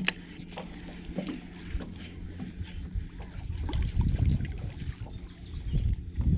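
Wind buffeting the microphone in gusts, loudest about four seconds in, over a steady low hum. Light scattered clicks come from a baitcasting reel retrieving a topwater popper.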